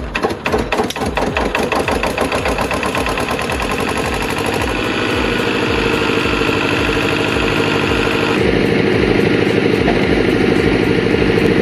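A machine's engine running steadily, its sound changing about eight seconds in.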